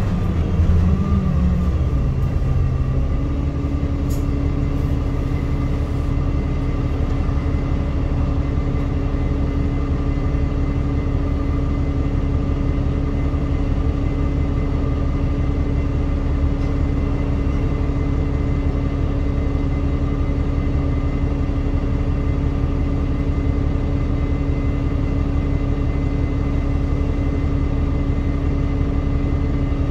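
Alexander Dennis Enviro200 MMC bus's diesel engine, heard from inside the saloon: it settles down in the first few seconds as the bus comes to a stop, then idles with a steady low rumble and a constant hum.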